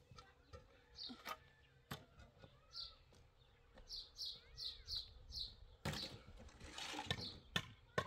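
Small birds chirping over and over in short high notes, with lower arched calls among them. A few sharp knocks come through, and there is a brief rustling noise about six seconds in.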